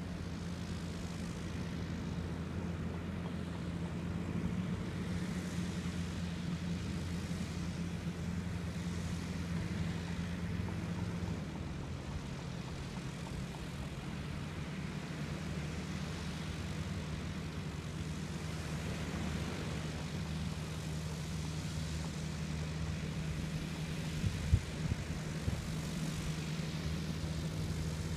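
Autogyro's engine and pusher propeller running steadily at a distance, the drone stepping down to a lower pitch about eleven seconds in. A couple of sharp knocks near the end.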